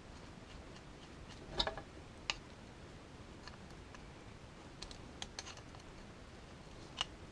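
A few scattered light clicks and taps of small hardware and tools being handled while fitting a switch to a circuit board, the loudest a little under two seconds in and a small cluster around five seconds.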